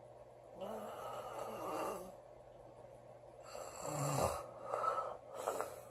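A woman snoring in her sleep: one long snoring breath about half a second in, then a louder, deeper snore about three and a half seconds in, followed by two short puffs of breath.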